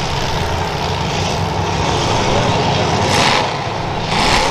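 Demolition derby car engines running with a steady low drone. Two short hissing bursts come a little after three seconds and again near the end.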